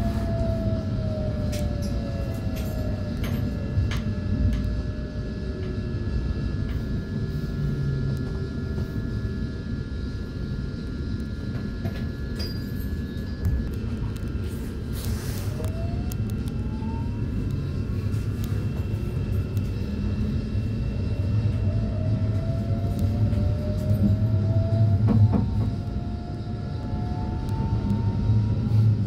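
Running noise inside an electric suburban train: a steady low rumble from the wheels and bogies, with the whine of the electric traction equipment gliding up and down in pitch as the train changes speed, and occasional clicks over rail joints.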